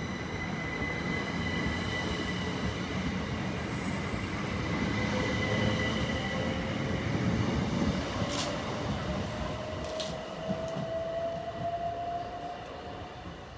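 Southern Class 377 Electrostar electric train pulling away from the station: a whine from its motors slowly rises in pitch as it gathers speed, over the low rumble of its wheels on the rails. Two brief sharp high noises come about 8 and 10 seconds in, and the sound fades near the end as the train draws away.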